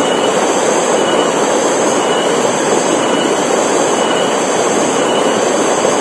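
Mountain stream rushing and splashing over boulders in small cascades, a loud steady rush of water.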